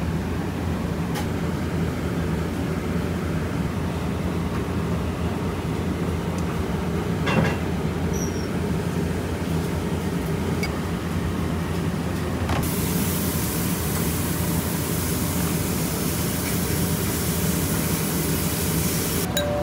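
Commercial kitchen noise: a steady low mechanical rumble with a few light clatters, and a brighter hiss joining in about two-thirds of the way through.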